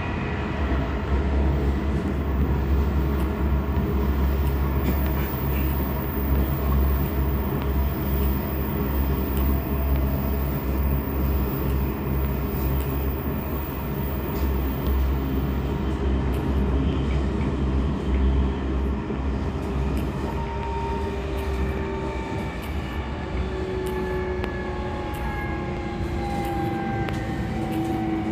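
Tokyo Metro 16000 series electric train running, heard from inside the car: a steady rumble of wheels on rail. From about two-thirds of the way in, the whine of its traction motors falls slowly in pitch as the train slows.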